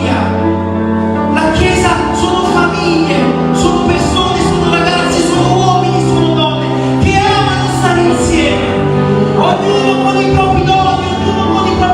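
Worship music: long held keyboard chords changing every second or two, with voices singing over them.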